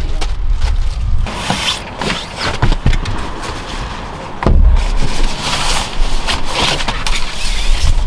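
Plastic bag crinkling and rustling in bursts as a folded fabric curtain is wrapped in it, over wind rumbling on the microphone.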